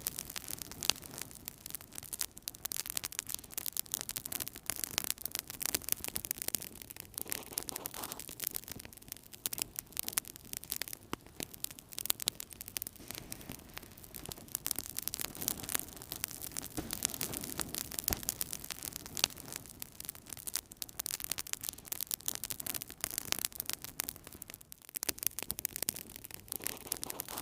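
Wood fire burning in a fireplace, crackling with many small, irregular pops over a soft low rush of flames that swells and fades.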